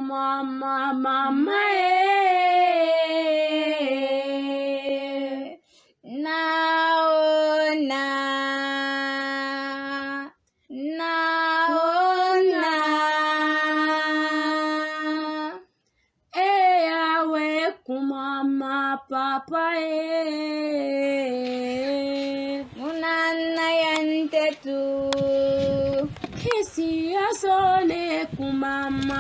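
A single female voice singing a slow, unaccompanied song in long held notes, phrase by phrase with short breaks between. Near the end a few knocks and some low noise sound under the singing.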